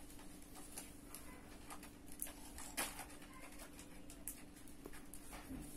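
Faint rustling and soft ticks of a metal darning needle and wool yarn being drawn through knitted fabric while a seam is sewn, over a faint steady hum.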